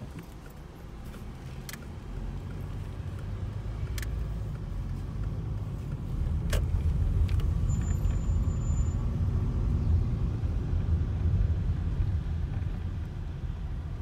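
Car driving, heard from inside the cabin: a steady low engine and road rumble that grows louder about halfway through, then eases off near the end. A few faint clicks come through in the first half.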